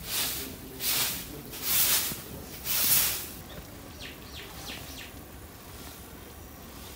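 Short-handled broom swept across a bare dirt yard: four swishing strokes about a second apart that stop about three seconds in. After them, a few short bird chirps.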